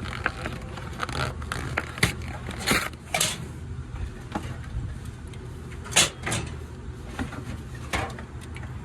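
Drinks being loaded into a vending machine: scattered knocks and clunks, the loudest about six seconds in, over a steady low hum.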